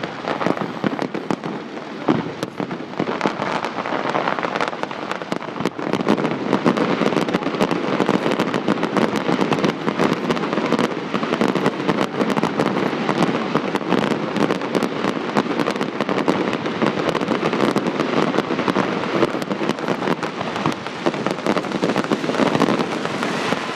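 Fireworks display: a dense, continuous barrage of rapid bangs and crackles.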